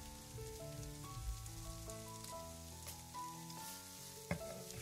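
Soft background music, a slow melody of held notes, over a faint moist rustling of shredded cabbage being spread in a glass baking dish with tongs. One sharp knock near the end.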